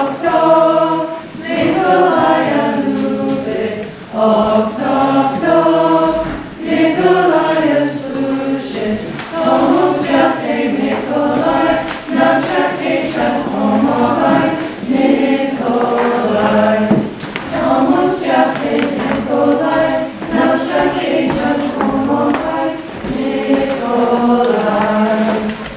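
A choir of voices singing a song together, phrase after phrase with short breaks between.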